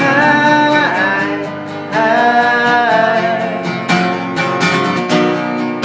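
Acoustic guitar strummed under a singer holding long notes in the first half, then the guitar strumming on its own with clear strokes near the end.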